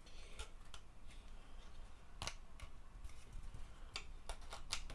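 Light clicks and taps of laser-cut wooden rack parts being handled and their tabs pushed into slots: a few scattered clicks, then a quick cluster of three or four near the end.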